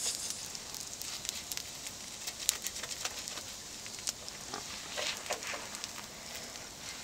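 Gyoza frying on a multi-griddle over a cassette gas stove: a steady sizzle with many small crackles of spitting oil as the winged skin crisps, cooked without water or lid. A spatula scrapes under the gyoza to lift them from the pan.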